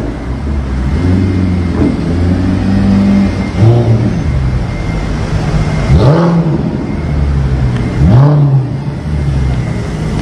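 Mercedes-Benz SLS AMG Roadster's V8 engine revved in four short blips about two seconds apart, each rising sharply and dropping back to a low idle, as the car pulls away slowly in traffic.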